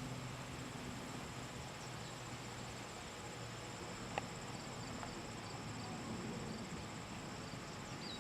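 Insects trilling: a steady, high-pitched pulsing chorus, with a single sharp click about four seconds in.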